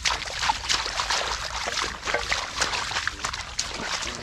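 Hands squelching and sloshing through wet mud and shallow water while groping for catfish, a dense run of small wet smacks and sucks.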